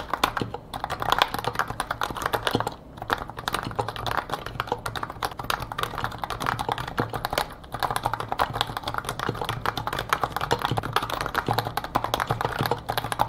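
Continuous fast typing on a full-aluminium NovaTouch keyboard fitted with lubed Topre switches and PPS keycaps: a dense, steady stream of keystrokes with a couple of brief pauses.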